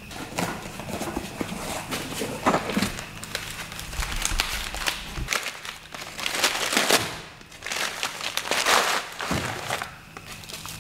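Brown kraft packing paper being pulled from a cardboard box, crumpling and rustling in repeated irregular bursts.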